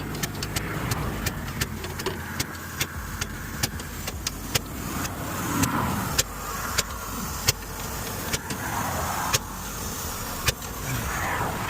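Highway traffic passing close by, several vehicles going past one after another, with many short sharp clicks scattered through it.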